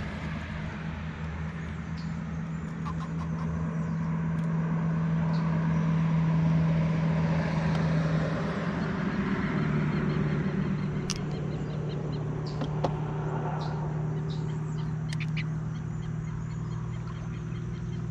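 An engine running steadily, its pitch dropping a little about halfway through and again near the end.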